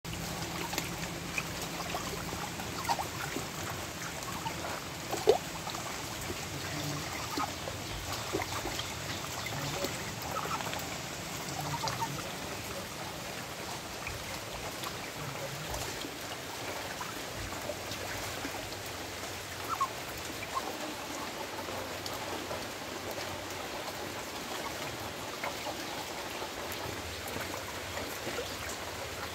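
Shallow water trickling along a concrete channel while Muscovy ducks bathe in it, with scattered small splashes and drips. One brief sharper sound about five seconds in.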